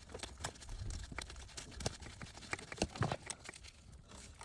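Irregular clicks and knocks of hand tools and bolts against metal as the new ABC hydraulic pump is bolted in.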